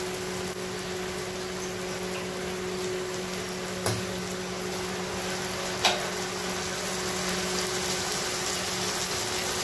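Onions and ginger-garlic paste frying in mustard oil in a karahi, a steady sizzle, as tomato purée is poured in. A steady low hum runs underneath, and two short knocks come about four and six seconds in, the second with a brief metallic ring.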